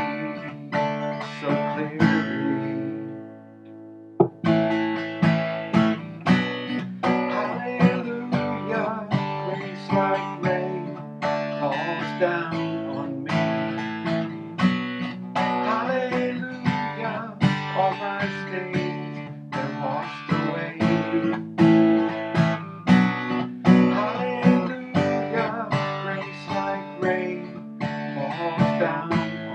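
Solo acoustic guitar playing chords in a steady rhythm. About two seconds in, one chord is left to ring out and fade, and the playing picks up again about two seconds later.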